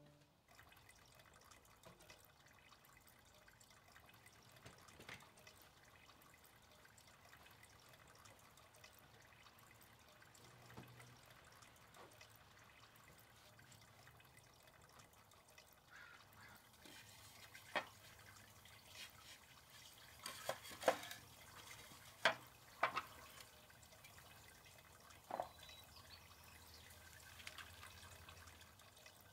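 Faint dripping and trickling water, with a handful of sharp knocks in the second half.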